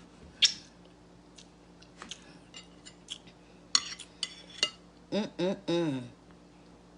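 An eating utensil clinking and tapping against a dish, with one sharp click near the start and scattered lighter clicks after it. About five seconds in comes a short wordless hum of a voice.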